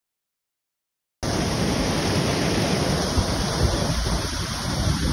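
Heavy rain, a dense steady hiss that cuts in suddenly about a second in, with wind buffeting the microphone.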